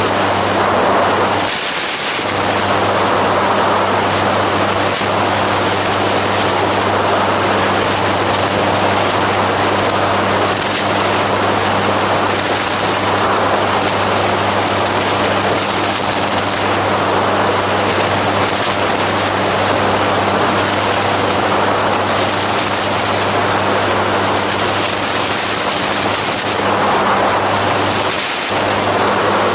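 Gyroplane engine and propeller droning steadily in cruise flight, a constant low hum under a heavy rush of wind noise.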